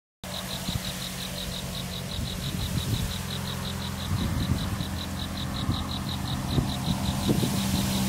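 An insect chirping in a fast, even pulse, about six chirps a second, over a low steady hum and irregular low rumbles.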